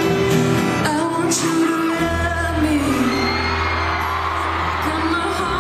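Live pop band with a female lead singer singing into a handheld microphone; a deep bass line comes in about two seconds in.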